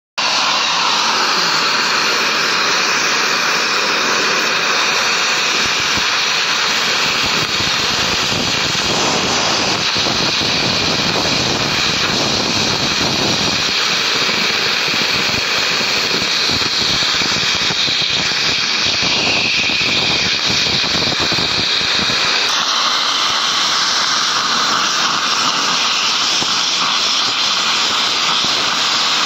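Oxy-fuel gas cutting torch hissing steadily as its jet cuts through an iron ingot; the hiss changes slightly in character about 22 seconds in.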